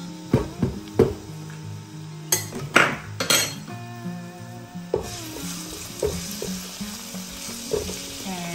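Minced garlic sizzling in hot oil in a wok, with a series of sharp clinks and knocks of a spoon against the pan, over background music.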